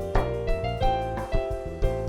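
Live band playing an instrumental passage: keyboard chords held over a low bass line, with drums keeping a steady beat.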